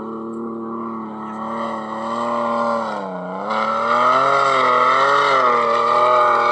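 Toyota FJ Cruiser's 4.0-litre V6 revving hard under load as it powers up a sand dune. The pitch dips about three seconds in, then rises and falls with the throttle and gets louder.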